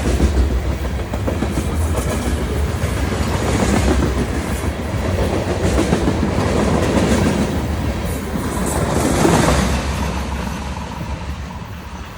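CSX freight train rolling past slowly, a steady rumble of its cars on the rails that fades over the last couple of seconds as the train goes by.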